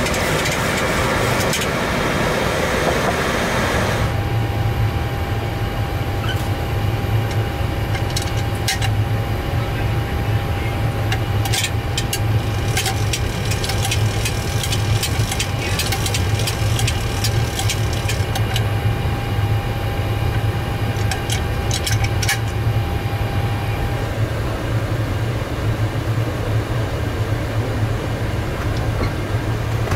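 Boeing 737 MAX electric stabilizer trim running, the trim wheel spinning with a dense mechanical whirr that stops abruptly about four seconds in. After that, a steady low hum with scattered clicks as the stabilizer trim wheel is turned by hand.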